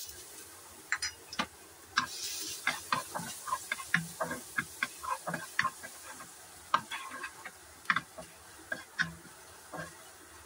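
Wooden spatula scraping and knocking against a nonstick wok as minced garlic is stir-fried in oil, in quick irregular strokes over a faint sizzle.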